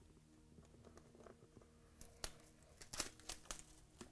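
Plastic shrink-wrap being torn and crinkled off a sealed trading card box. It is faint at first, then gives a run of sharp crackles from about halfway.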